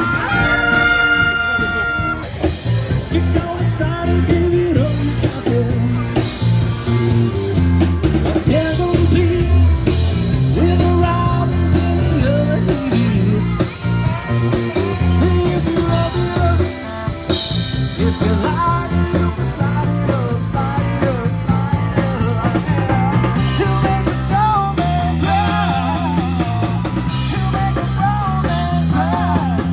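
Music: a rock song with a singing voice over a bass line, drums and guitar.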